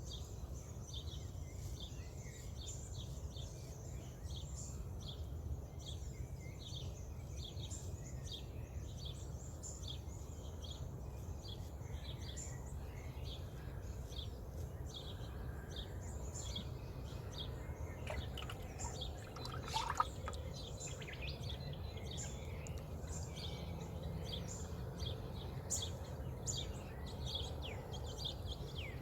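Dawn birdsong: one bird repeats a short high chirp roughly twice a second while other birds call around it, over a steady low outdoor rumble. A single louder sliding call stands out about two-thirds of the way in.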